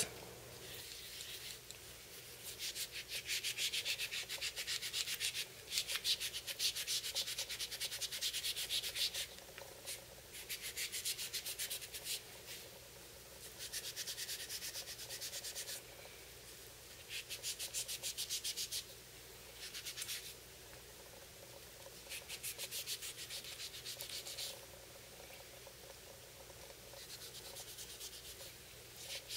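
Wet paper towel loaded with Barkeeper's Friend paste scrubbed rapidly back and forth along a ceramic sharpening rod: a gritty rubbing in bouts of a few seconds with short pauses between. The mildly abrasive cleanser is working the embedded steel particles out of the rod's surface.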